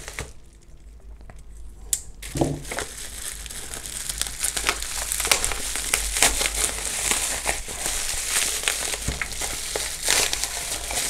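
Bubble wrap crinkling and crackling as it is pulled open and peeled away by hand. It starts about two seconds in and grows louder.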